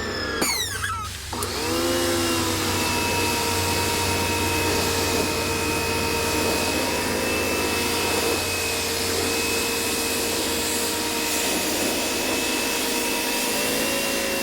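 Coyardor CP2500 electric pressure washer's motor and pump winding down in pitch, then starting again about a second in and running steadily with a whine over the hiss of water spraying from the 40-degree nozzle.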